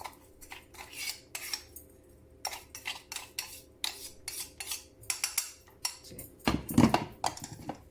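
A spoon scraping and tapping inside a grinder jar, working loose ground almond and white pepper powder stuck to the bottom, in short irregular clinks and scrapes. A few heavier knocks come about six and a half seconds in.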